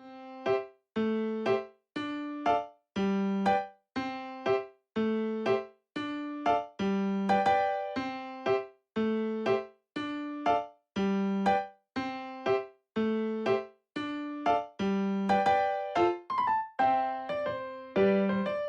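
Background music: a bouncy keyboard tune of short, detached notes, with brief gaps between phrases.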